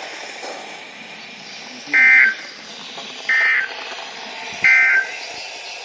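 NOAA Weather Radio SAME digital data bursts: three short, warbling two-tone buzzes about 1.3 seconds apart, over steady radio hiss. Their shortness fits the end-of-message code that closes the warning just read.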